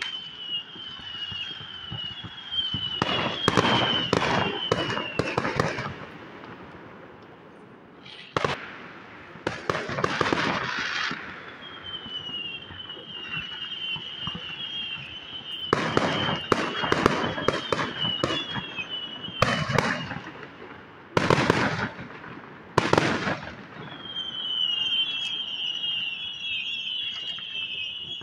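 Fireworks and firecrackers going off in clusters of rapid bangs and crackles, several clusters a few seconds apart. Between the clusters, a high chirping repeats over and over.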